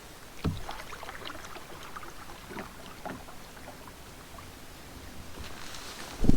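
Canoe paddling: water splashing and dripping with scattered small knocks of gear and paddles against the canoe. There is a thump about half a second in and a heavier thump near the end.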